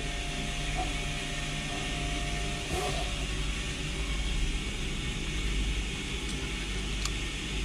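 Steady hum and hiss of engine-room machinery, with a faint thin whine that stops about a third of the way in.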